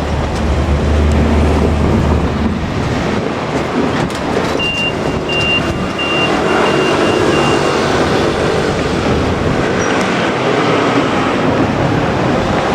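Vehicle rumble at a level crossing: a low engine hum, likely the departing KiHa 47 diesel railcars, stops about two seconds in. General traffic rumble continues. Around the middle comes a run of six short, high beeps on one pitch.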